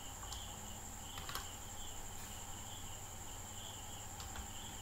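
Faint cricket chirping, a pulsing high trill with a steady high-pitched whine above it, and a few soft computer-keyboard key clicks.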